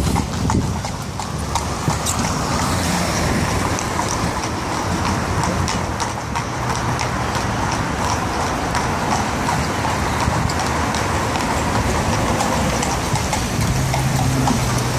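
Horse's hooves clip-clopping on wet tarmac, mixed with the hiss of traffic on the wet road. Near the end a low steady engine hum from a vehicle passing close by.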